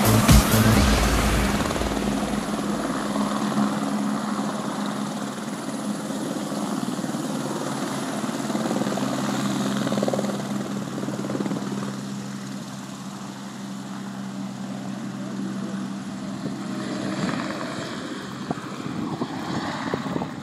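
Eurocopter AS350 B2 Esquilo helicopter lifting off and flying away: rotor beat and the steady whine of its single turboshaft engine. The beat is heavy for the first second or so, then the whole sound fades gradually as it departs.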